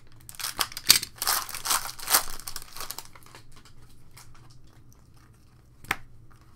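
Foil trading-card pack crinkling as it is torn open, for about the first three seconds, then quieter handling of the cards with one sharp click near the end.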